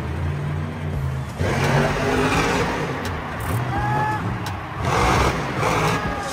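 Monster truck's engine revving hard, surging louder about a second and a half in and again around five seconds.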